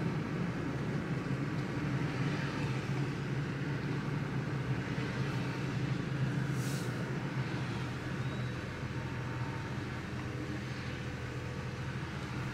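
Toyota Tacoma pickup driving slowly down a dirt forest road: a steady engine hum with road and tyre noise.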